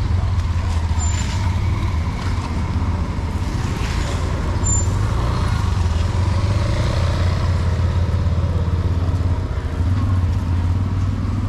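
Motor vehicle engine running steadily with a low rumble, amid street traffic noise.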